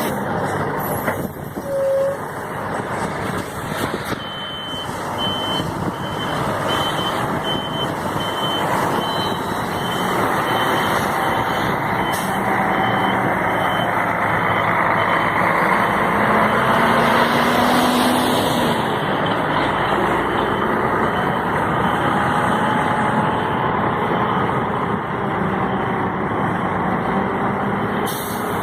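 Heavy construction machine running, its engine and machinery noise steady throughout. A reversing alarm beeps in an even rhythm through much of the time.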